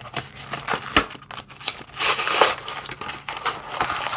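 Plastic blister pack of trading cards being torn open by hand: irregular crackling and crinkling of the plastic and card, with one louder tearing rip about two seconds in.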